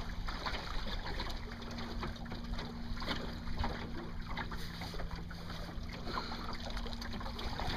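Water swishing and lapping along the hull of a Welsford Navigator small sailboat under way, with many small irregular splashes and a faint steady low hum underneath.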